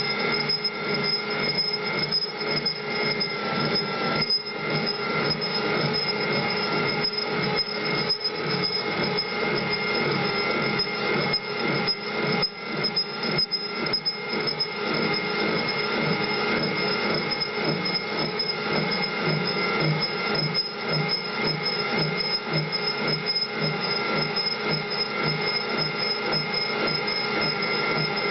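A metalworking machine tool running on metal, giving a steady shrill sound with several high pitches held over a noisy, grinding hiss.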